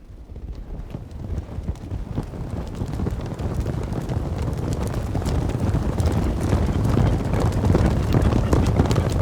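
Horse hooves drumming on the ground in a fast, dense patter, growing steadily louder as the horses come closer, with some wind on the microphone.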